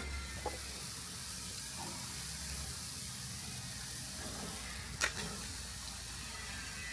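Steady hissing, with one sharp click about five seconds in.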